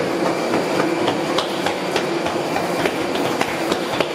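Walking along an airport boarding corridor: footsteps and irregular clicks and rattles on the hollow floor over a steady hum.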